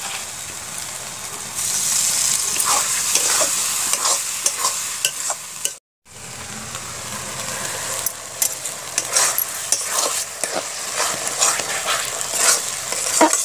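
Onion-tomato masala with spices and salt sizzling in a kadai, stirred with a metal ladle that clicks and scrapes against the pan. The sizzle grows louder about a second and a half in, and the sound breaks off briefly about six seconds in.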